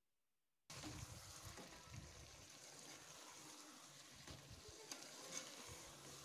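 Chicken liver and masala faintly sizzling in a metal pot as it is stirred with a spoon, starting abruptly just under a second in. A couple of light clicks of the spoon against the pot come about five seconds in.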